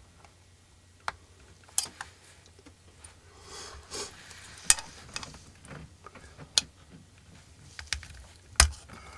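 Scattered sharp clicks and knocks, about five of them, with a short scrape about three to four seconds in, as parts of a GE ECM blower motor are handled and pried at during disassembly.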